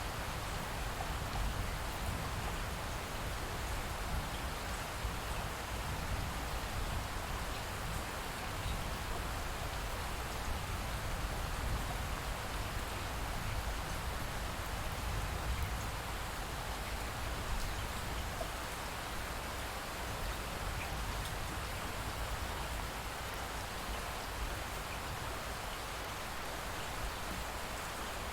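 Steady light rain falling, an even hiss with faint scattered drop ticks and no thunder.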